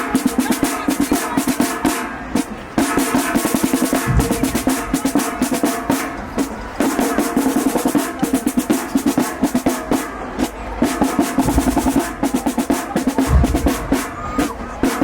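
Marching band drumline playing a marching cadence: rapid snare rolls and strokes over pitched tenor drums and bass drum hits, with brief breaks in the pattern.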